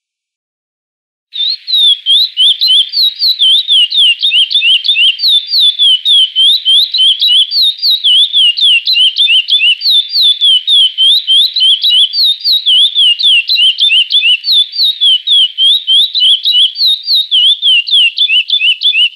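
Curió (chestnut-bellied seed finch) singing the classic 'Praia' song type. About a second in, a long, unbroken string of clear, rapid whistled notes begins, each note sliding up or down in pitch.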